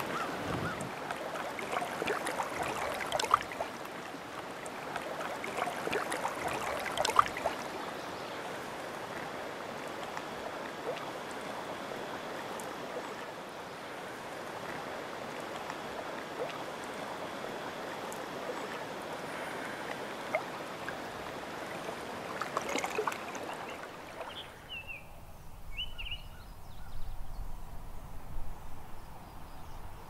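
Lake water lapping and washing at the shallows with wind, with a few sharper splashes. About 24 s in it gives way to a quieter open-air background with a few short bird chirps.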